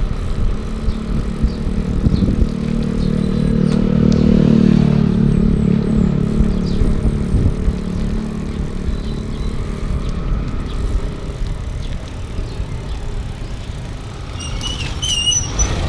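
Steady low wind and road rumble on a moving camera, with a motor vehicle's engine passing and swelling about two to six seconds in. A few high squeaks come near the end.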